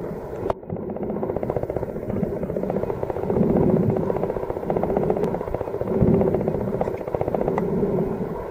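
A motor buzzing steadily with a fast, even pulse, heard muffled through the water.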